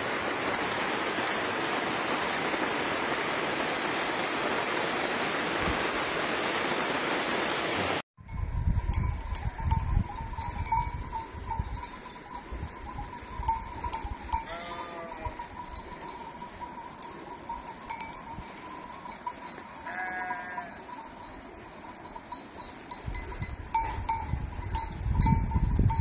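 A steady rushing noise for about the first eight seconds. Then, after a sudden cut, a flock of sheep with a few short bleats, bells ringing among the flock, and gusts of wind buffeting the microphone.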